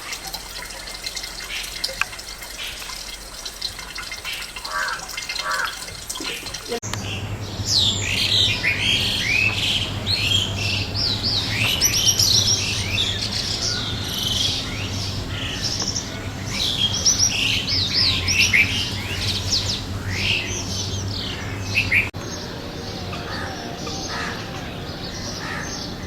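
A flock of small birds chirping together in a dense chorus of short, rapid high calls over a steady low hum. The chorus starts abruptly about seven seconds in and gives way suddenly near the end to fainter, scattered calls.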